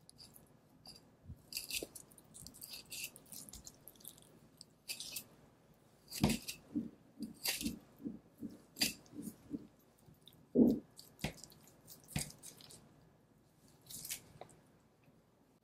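A knife slicing fat and sinew away from a raw Kuroge Wagyu beef knuckle, with wet, crackly cutting sounds as the fat is peeled back. Around the middle there is a run of short strokes in quick succession, followed by a dull thump.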